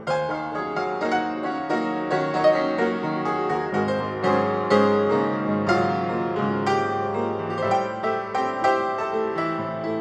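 Background piano music, with notes struck in quick succession throughout.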